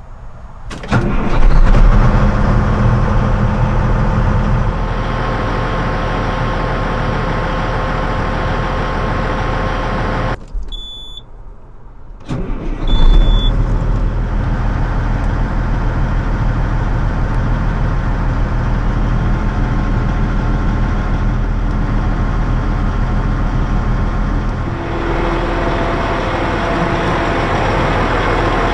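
The 525 hp Caterpillar diesel engine of a 2002 New Holland FX58 forage harvester starting about a second in and then running steadily. Around ten seconds in the engine sound drops away for about two seconds, with two short high beeps, before the engine comes back loud and runs on.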